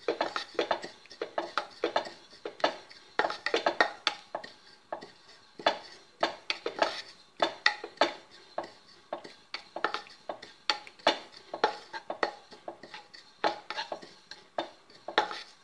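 Wooden spatula stirring white sesame seeds as they dry-roast in a kadai: a run of sharp, irregular clicks and taps, several a second.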